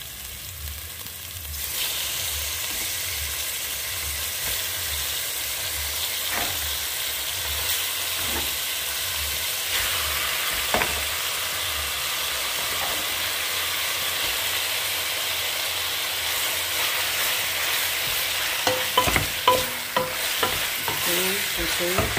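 Squid strips frying in hot oil in a stainless steel pot: a steady sizzle that jumps louder about two seconds in as the squid goes in. Near the end a wooden spoon knocks and scrapes against the pot as the squid is stirred.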